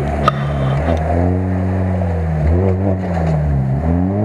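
Lada Niva's four-cylinder petrol engine revving up and down under load while working through deep mud, its note rising and dipping a couple of times.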